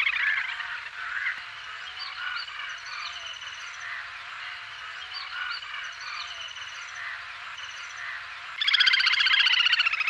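Little grebe calling: scattered short high notes, then, from about 8.6 s, a loud, rapid trill of quickly repeated high notes, the species' whinnying trill.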